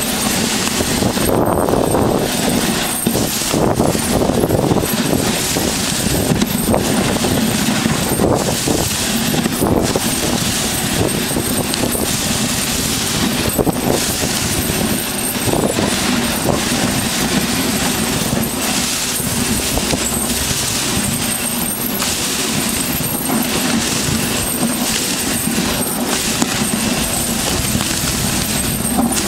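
Dog sled running over a rough glacier surface: the runners scrape and hiss continuously, and the frame, which has no suspension, rattles and clatters constantly over the bumps.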